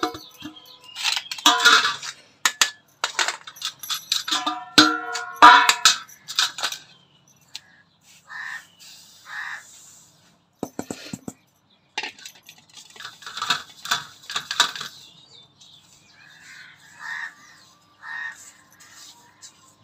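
Semolina being poured between a steel plate, an aluminium pot and a metal sieve, then sifted by hand: the grains hiss and the metal vessels clink and ring as they knock together. This is the sifting of rava before making upma.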